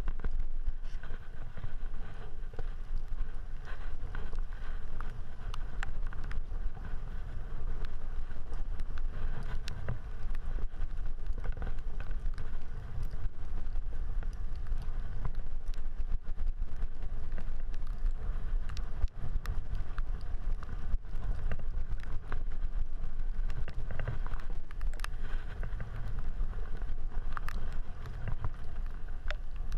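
Road bike rolling on wet pavement: a steady low wind rumble on the action camera's microphone mixed with tyre hiss, and scattered small clicks and knocks.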